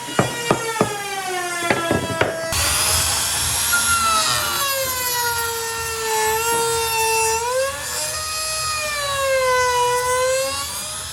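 A few sharp knocks on wood, then about two and a half seconds in a high-speed electric power tool starts working the wood, its whine rising and falling in pitch as the load changes.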